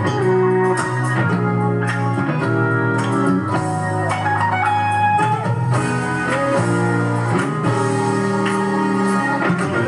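Instrumental gospel song intro with organ chords, guitar and a steady beat, before the vocal comes in.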